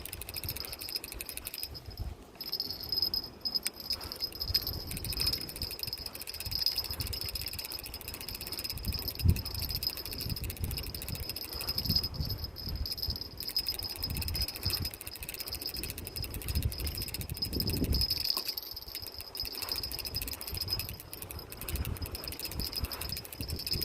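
Night insects chirring in a steady high-pitched chorus that breaks off briefly a few times, over an irregular low rumble of wind or handling noise on the microphone.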